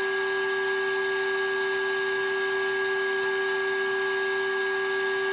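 Steady test tone from a signal generator's amplitude modulation, reproduced through a 1970s Roberts Rambler transistor radio's loudspeaker over a background of hiss while its 470 kHz IF stages are aligned for peak output. The tone holds one pitch at an even level throughout.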